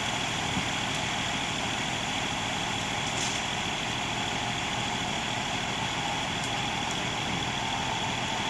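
Concrete truck's engine running steadily.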